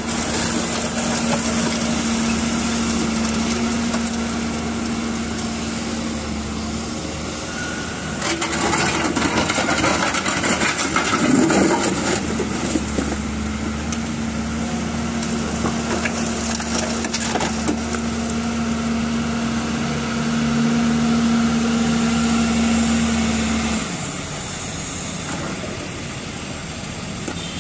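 Doosan DX wheeled excavator's diesel engine running steadily while it works, with a clatter of broken asphalt chunks tipped from the bucket into a dump truck's bed about 8 to 12 seconds in. The steady engine note drops away about four seconds before the end.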